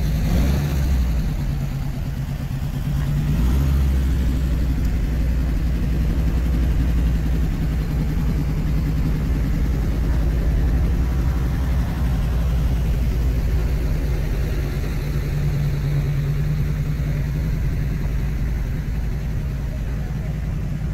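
A car engine idling steadily, a low even rumble.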